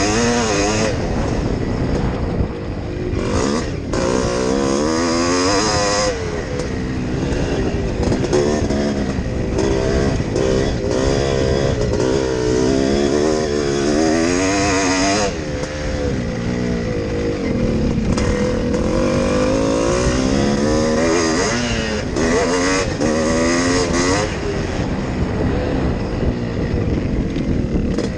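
Yamaha YZ465 two-stroke single-cylinder motocross engine under hard racing throttle, its pitch climbing and dropping over and over as the rider works the throttle and gears.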